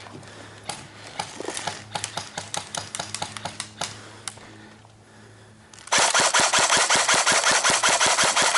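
Airsoft guns firing: a scattered string of sharp shots and cracks for the first few seconds. Then, about six seconds in, a long, loud full-auto burst of rapid, evenly spaced shots begins and runs on past the end.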